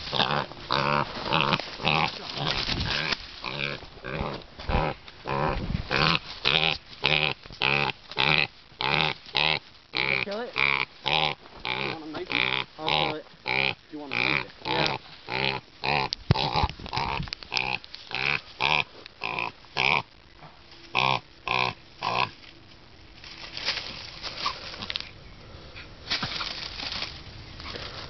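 A downed wild pig giving short calls over and over, about two a second. The calls stop about three-quarters of the way through, leaving only fainter rustling.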